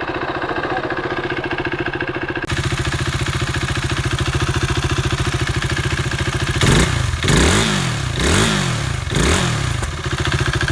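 KTM Duke 390's single-cylinder engine idling, blipped three times in quick succession about two-thirds of the way through, each rev rising and falling back to idle. With the new cam chain tensioner fitted, the earlier abnormal engine noise is gone.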